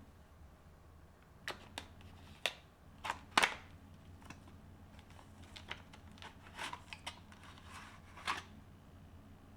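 Small handling sounds of PC parts and packaging: a scattered run of sharp clicks and taps with brief rustling, over a low steady hum. The loudest clicks come a little over three seconds in.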